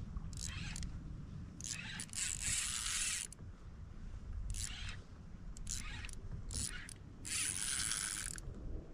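Spinning reel being cranked in short spurts, its gears whirring, with two longer turns of about a second each, a couple of seconds in and near the end, over a steady low rumble.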